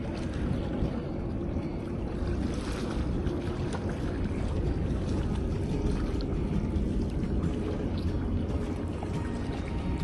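Steady low rumbling noise of wind and water at the seawall, with no distinct events.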